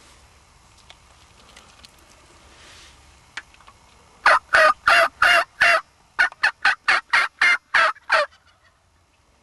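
A series of loud turkey yelps: five evenly spaced, a short pause, then about eight quicker ones.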